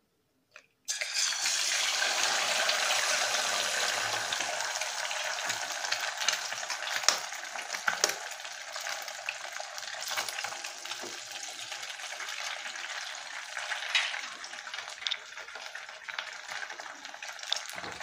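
Two eggs frying in hot oil in a kadai. The sizzle starts suddenly about a second in, as the egg hits the oil, then slowly dies down, with a few sharp clicks.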